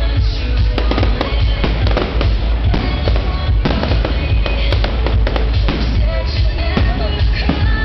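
Fireworks bursting and crackling in quick succession over loud music with a heavy bass.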